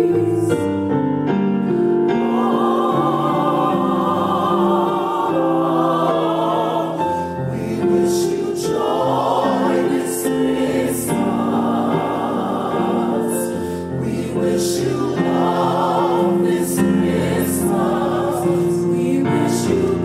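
Gospel choir singing in harmony: long held chords that shift every second or so, with vibrato in the voices and crisp 's' sounds on the words.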